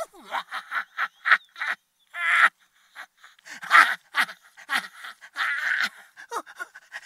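A man's manic, crazed laughter in rapid staccato bursts of about five or six a second. About two seconds in comes a harsh drawn breath and a short pause, then the laughing starts again louder, with a longer held cackle near the end.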